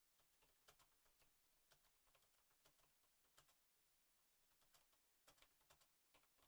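Near silence, with only very faint, irregular ticks.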